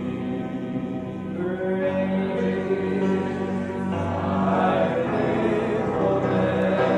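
A congregation singing together in worship, many voices holding long notes over steady sustained chords.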